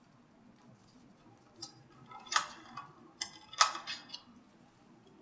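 Light metallic clicks and scrapes of a hex driver backing out the last Allen head bolt from an Agilent IDP15 dry scroll pump's outboard housing, starting about one and a half seconds in, with two louder metal clinks that ring briefly, about a second apart.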